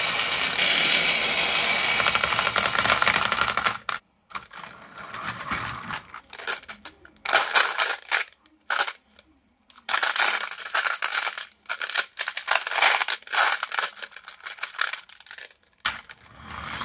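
Many glass marbles rolling and clattering down a wavy-grooved Haba marble track in a dense, continuous rattle that stops suddenly about four seconds in. After that come irregular short bursts of marbles clinking and rolling against each other in the plastic bed of a toy dump truck as it is handled and tilted.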